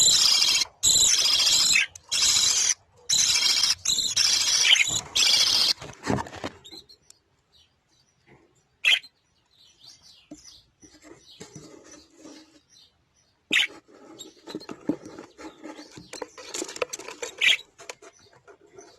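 Budgerigars chirping and chattering. Loud, harsh bursts fill the first six seconds, then sparser, quieter short chirps follow.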